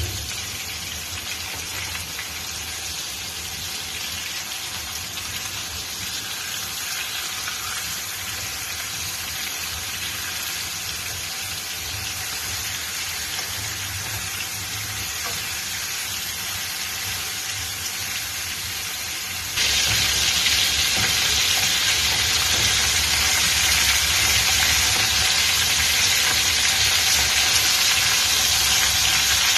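Marinated chicken pieces sizzling steadily in hot oil in a frying pan. About two-thirds of the way through the sizzle suddenly gets louder and stays that way.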